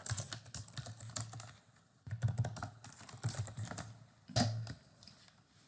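Typing on a computer keyboard to enter a search: a run of irregular key clicks with a couple of short pauses.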